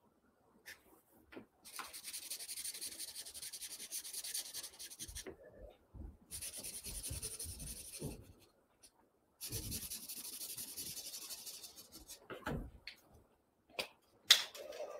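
Felt-tip marker scribbling rapidly back and forth on easel-pad paper, colouring in, in three bursts of a few seconds each. A few sharp clicks near the end.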